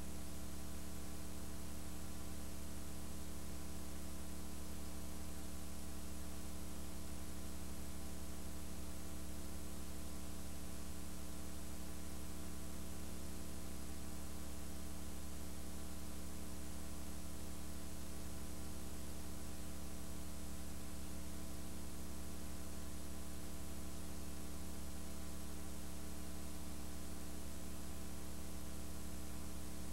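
Steady electrical mains hum, buzzy with many overtones, over a layer of hiss; no change and no knocks or thuds from the bars stand out.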